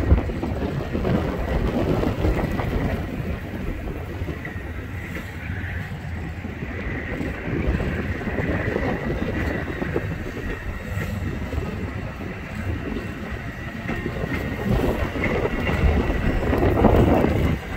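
Amtrak passenger train's Amfleet coaches rolling past on the rails, a steady rumble of wheels on track that grows louder near the end as the cars pass close by.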